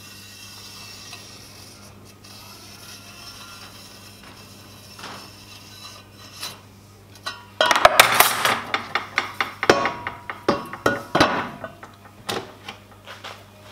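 A faint scratch or two of a pen being drawn along a steel rule. Then, from about eight seconds in, a run of loud, irregular metallic clanks and clinks as the steel rule and stainless steel tubes are moved and set down on a wooden workbench.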